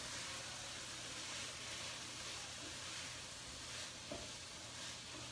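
Chopped chicken breast, onion and garlic sautéing in olive oil in a hot pan, a faint steady sizzle. A soft tap about four seconds in.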